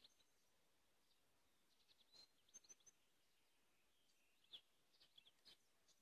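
Faint songbird calls: scattered short chirps, with a quick run of three high pips about two and a half seconds in and a cluster of chirps near the end, over a soft background hiss.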